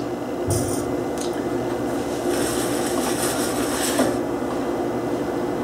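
A steady low hum, with a soft high hiss lasting about two seconds in the middle.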